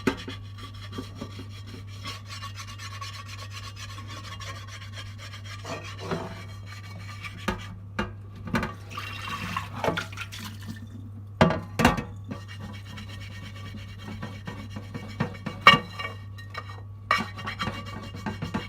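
A stained pan being scrubbed with a dishwasher tablet: rubbing, rasping strokes with scattered knocks of the pan, and a short rush of water about nine seconds in.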